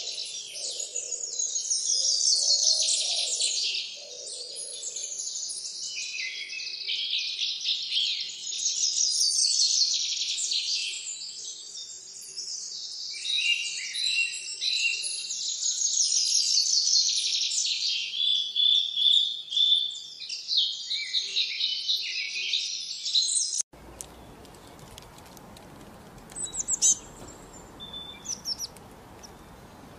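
Many small birds chirping at once in a dense, continuous chorus of rapid high chirps and trills. About three-quarters of the way through it cuts off abruptly, leaving a steady hiss with only a few scattered chirps.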